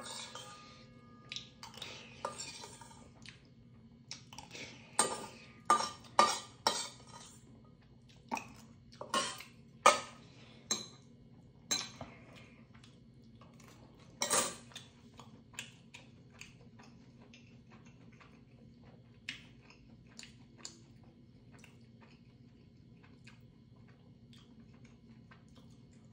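Metal spoon and chopsticks clinking and scraping against a stainless steel bowl: sharp clinks in clusters, loudest about fourteen seconds in, then only a few faint taps.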